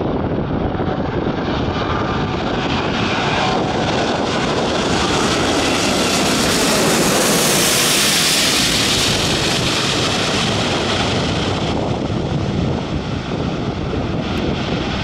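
Airbus A380-841 with its four Rolls-Royce Trent 970 turbofans on final approach at low throttle, passing low overhead. The engine and airflow noise swells as it comes in, is loudest and hissiest about halfway through as it passes directly above, then fades as it heads away toward the runway.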